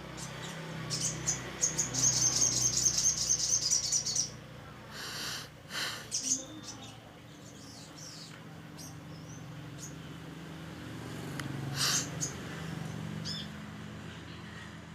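Sunbird (sogok ontong) singing: a rapid, high trill lasting about two and a half seconds, with scattered short chirps before and after it.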